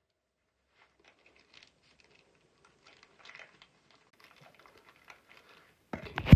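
Faint rustling and light clicks of loose eyeglass frames being sorted by hand in plastic crates. About six seconds in there is a louder clatter with one sharp knock.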